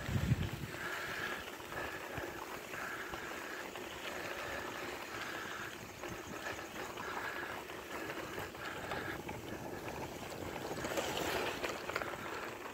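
Bicycle tyres rolling over a sandy gravel road, a steady hiss of grit under the wheels. Over it a high pulsing note repeats about every half second.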